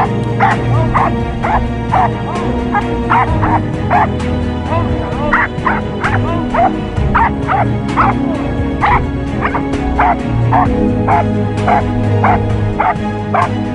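Police dog on a handler's lead barking repeatedly, about two barks a second, at a restrained suspect, over background music.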